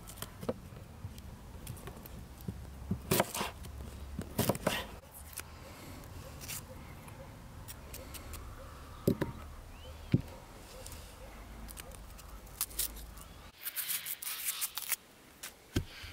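Onions being peeled with a kitchen knife: the blade cutting and scraping off dry onion skin, with sharp clicks of the knife against a wooden cutting board. Near the end there is a short burst of crackling.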